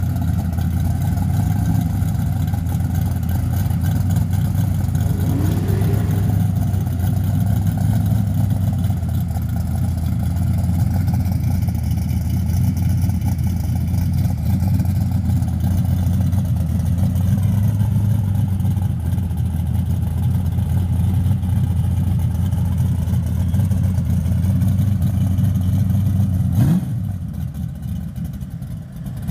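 Fox-body Ford Mustang's engine idling loudly and steadily with a deep exhaust note. Near the end it drops in level and changes.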